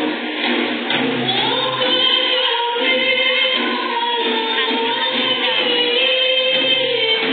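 Rebana ensemble performing: a group of women singing together in unison over the beat of rebana frame drums.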